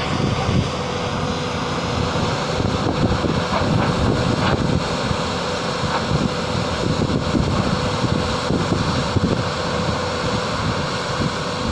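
Wind buffeting the microphone over the running diesel engine of a Hyundai 215L crawler excavator as it tracks off a trailer ramp, with a steady whine held throughout.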